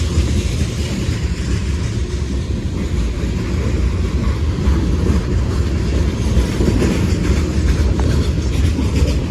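Long freight train rolling slowly past: a steady low rumble of the cars on the rails.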